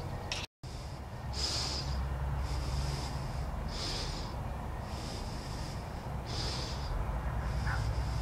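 A person breathing close to the microphone: soft hissy breaths about every second and a quarter, alternating stronger and weaker, over a low steady hum. The sound cuts out completely for a moment about half a second in.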